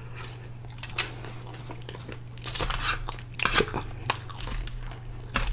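Close-up chewing of a mouthful of sauce-covered fries, with wet mouth sounds and scattered short clicks over a steady low hum.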